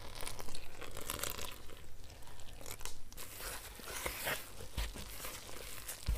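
Wooden spoon stirring water into wholemeal flour in a plastic mixing bowl: an irregular gritty scraping and scuffing, in short strokes that grow stronger about three seconds in.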